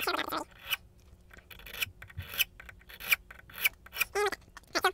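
Small hand file rasping in short, uneven strokes across a key blank held in a lock, starting an impressioning cut where the pin marks showed.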